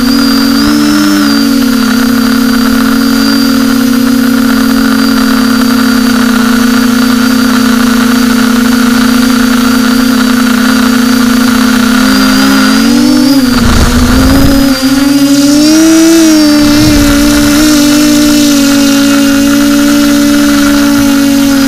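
Quadcopter drone's motors and propellers humming steadily with a high whine on top; the pitch wavers and shifts about two-thirds of the way through as the drone manoeuvres, with two brief low rumbles at the same time.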